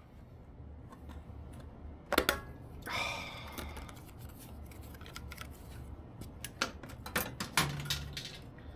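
Metal parts and hand tools clicking and clinking on a bicycle: a scatter of sharp clicks, the loudest two close together about two seconds in, with a short metallic ringing tone about three seconds in.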